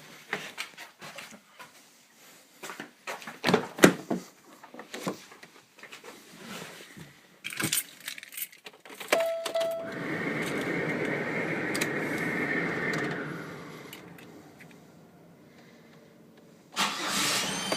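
Keys jangling and rattling with scattered clicks, a short beep-like tone, then the GM 3400 3.4-litre V6 starting and running steadily for a few seconds before fading. A loud burst of noise comes near the end.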